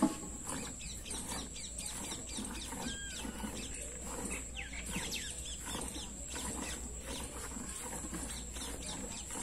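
Milk squirting into a steel bucket as a cow is hand-milked, in quick irregular spurts, with small birds chirping now and then.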